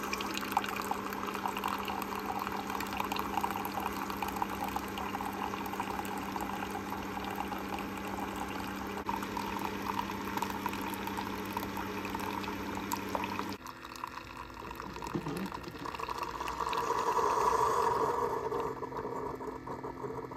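Keurig single-serve coffee maker brewing: a steady pump hum and the coffee stream pouring into a mug, until the pump cuts off sharply about 13 seconds in. A louder hiss of a couple of seconds follows near the end as the brew finishes.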